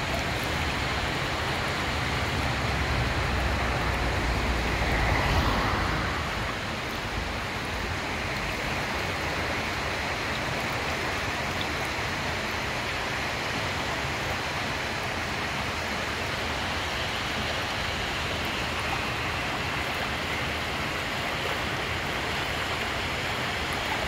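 A shallow stream rushing over a stony bed, giving a steady hiss of running water. A low rumble sits under it for the first five or six seconds, loudest about five seconds in.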